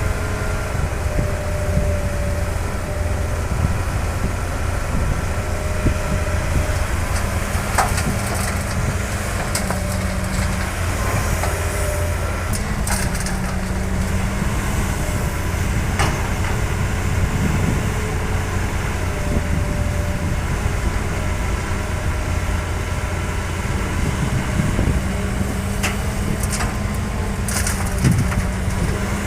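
Heavy diesel construction machinery running with a steady low rumble and engine tones that rise and fall now and then, with a few sharp clanks through it.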